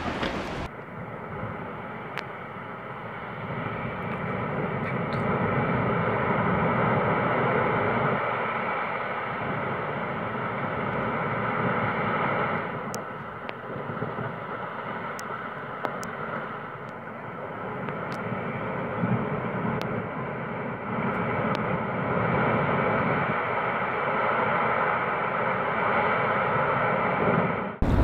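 Distant rockfall: a steady, rumbling roar of rock pouring down a cliff face, slowly swelling and fading over many seconds, with a few faint clicks.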